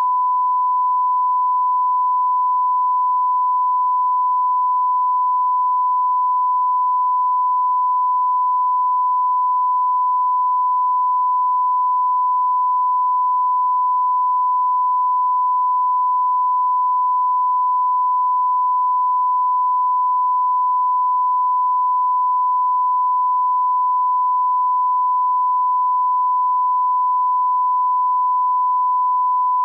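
Broadcast line-up test tone played with colour bars: a single pure beep held at one steady pitch and an even level, without a break.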